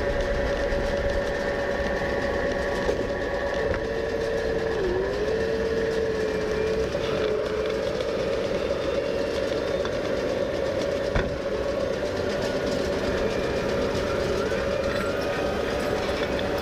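New Holland T5.120 tractor's diesel engine running steadily under way, with a steady whine and a second tone that wavers in pitch for a few seconds, and one sharp click about eleven seconds in.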